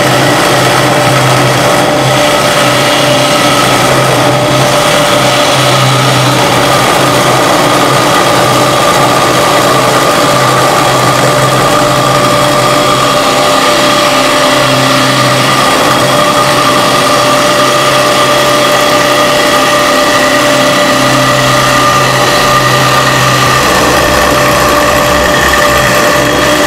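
CNC wood lathe with two rotary axes and two router spindles milling two turned wooden balusters at once: a steady motor whine over the noise of the cutters chewing wood, with a low hum that swells and fades.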